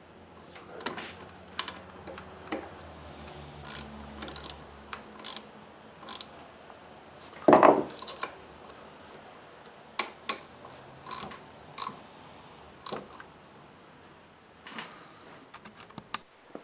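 Ratchet clicking and metal tool clinks while the three bolts of a VW TDI anti-shudder valve are tightened, with one louder knock about seven and a half seconds in.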